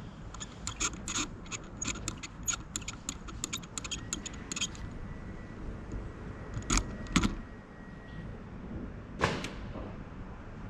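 A quick irregular run of light metallic clicks and rattles, then two loud knocks about half a second apart and a third knock with a short ring a couple of seconds later, over a steady low background rumble.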